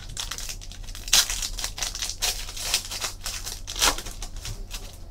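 Foil trading-card pack wrapper crinkling and being torn open by hand, with louder sharp rips about a second in and again near four seconds.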